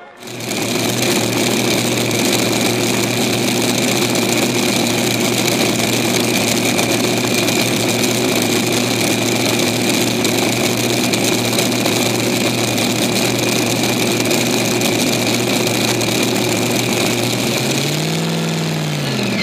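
Supercharged engines of the Four NoHemi multi-engine pulling tractor running at a steady idle, then revved once, rising and falling in pitch, near the end.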